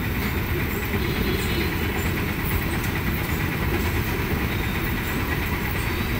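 Steady rumble of road traffic passing close by, with no distinct event standing out.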